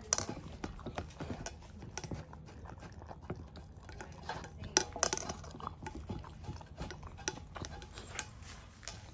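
A dog eating dog food from a stainless steel bowl: its tongue, teeth and the food clink and scrape against the metal in irregular clicks, with sharper clinks near the start and about five seconds in.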